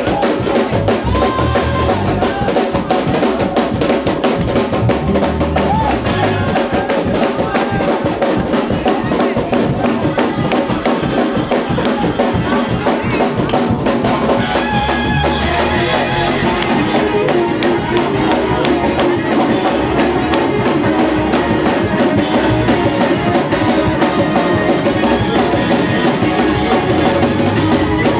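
Live church praise-break music driven by a drum kit, with bass drum and rimshots over other instruments.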